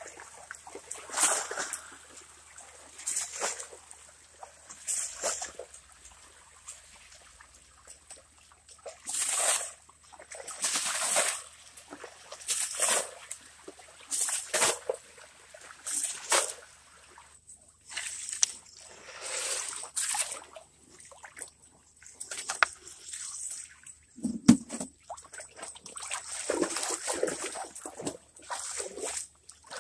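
Muddy water splashing and sloshing in a shallow pit pool as it is thrown and scooped with a gold pan, in short bursts every second or two. One duller knock stands out late on.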